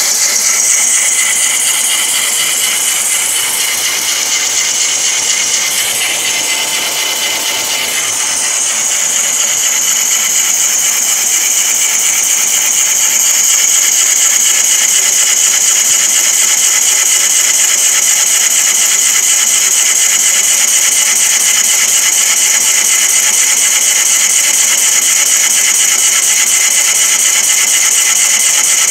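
CNC wood lathe turning a large wooden blank, its cutting tool peeling off long shavings: a steady, loud, hissing cutting noise with a high, even tone over it. It eases a little about a quarter of the way in, then builds back up and holds steady.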